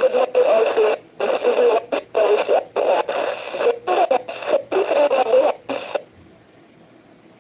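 A noisy voice transmission from an amateur radio transceiver's speaker: a station answering on the net, in choppy bursts like speech. It stops about six seconds in, leaving a faint hiss.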